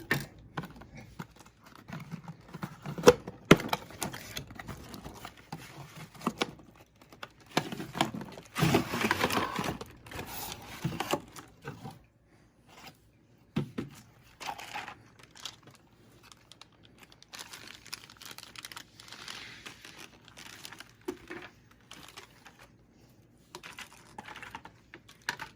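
A cardboard board-game box being opened and its contents handled: irregular taps, clicks and scrapes of cardboard and plastic parts, with stretches of crinkling and rustling. One sharp click about three seconds in is the loudest sound.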